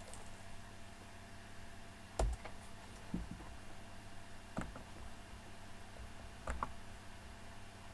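A handful of faint, scattered clicks from working a computer, over a steady low hum of room and equipment noise.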